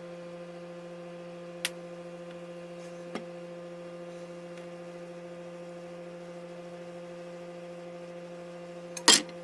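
A steady electrical hum, with a faint click a second and a half in, another near three seconds, and a sharper click near the end.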